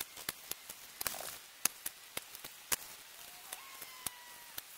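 Manual caulking gun squeezed repeatedly while laying a bead of silicone, its trigger and plunger ratchet giving sharp, irregular clicks, a few a second.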